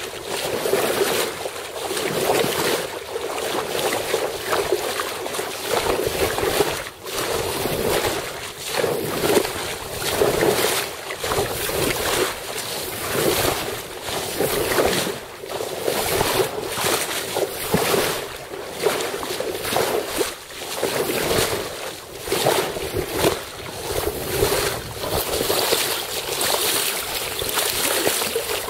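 Wind buffeting the microphone over the rush and splash of water along a sailboat's hull as it sails through choppy water, gusting up and down every second or two.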